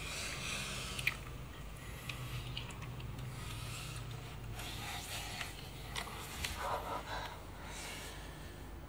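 A couple breathing heavily and gasping during lovemaking: soft, hissy breaths come and go, the strongest about six to seven seconds in, over a steady low hum.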